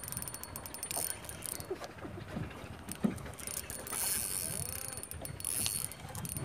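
Spinning reel being cranked to retrieve a lure, a soft mechanical whirr with small clicks from its gears, and a single knock about three seconds in.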